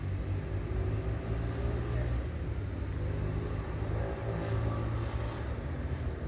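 Steady low rumble of outdoor background noise during a hushed pause, with faint voices in the distance.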